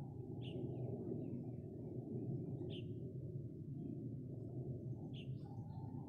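A forest stream flowing steadily, with a bird giving three short high calls about two and a half seconds apart.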